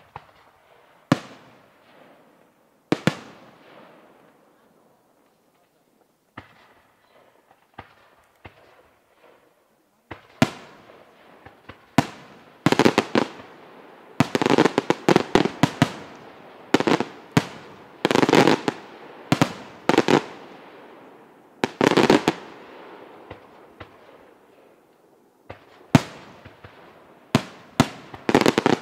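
Aerial firework shells bursting overhead. There are a couple of single bangs, each followed by a fading echo, then some small pops. From about ten seconds in comes a dense run of many sharp bangs, one after another.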